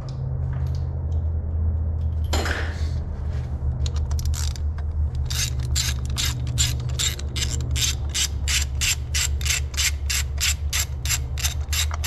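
Hand ratchet on an extension and spark plug socket clicking as it backs out a spark plug from the Chevy Sonic's 1.8 L engine. About four seconds in, a long even run of sharp clicks begins, about three a second, after a short scrape of the tool.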